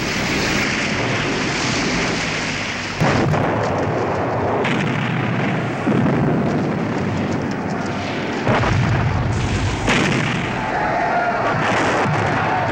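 Battle sound effects: steady gunfire under several sudden blasts of explosions.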